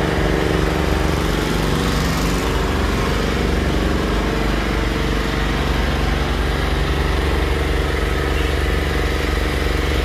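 A steady, unchanging engine-like drone, a motor running at constant speed.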